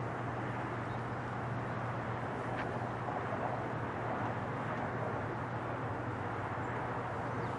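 Boeing 747-8 freighter's four GEnx-2B67 turbofan engines climbing away after takeoff: a steady jet rumble.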